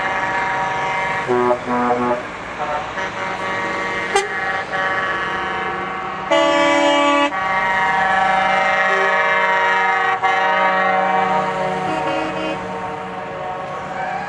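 Convoy lorries sounding their air horns as they pass: a few short toots, a loud blast about six seconds in, then a long held multi-note horn chord lasting several seconds, over the running of truck engines.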